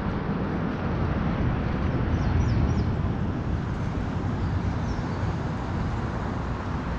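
Steady outdoor background rumble, strongest in the low range, with a few faint high chirps about two seconds in and again near five seconds.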